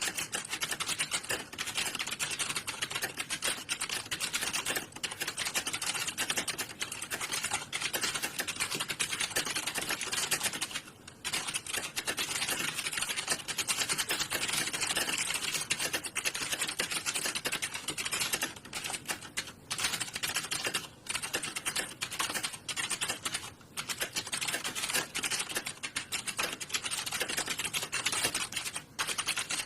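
Fast, continuous typing on computer keyboards, a dense stream of key clicks with a few short pauses.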